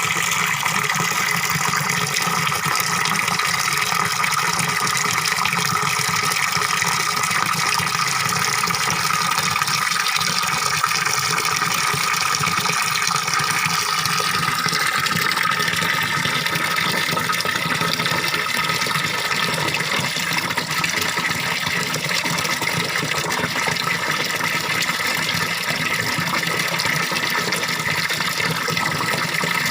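Small waterfall pouring into a fish pond, water splashing and gurgling steadily.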